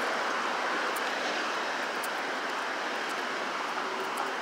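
Road traffic on a busy city street: a steady wash of engine and tyre noise from passing cars and trucks.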